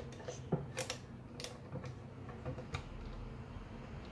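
Plastic Lego bricks being handled and worked at a connection, giving a scatter of light, irregular clicks and clacks, roughly one or two a second.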